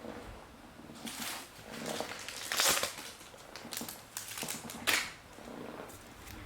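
Plastic card sleeves and packaging being handled on a table: irregular rustling and crinkling with small clicks, the loudest crinkle about two and a half seconds in and another near five seconds.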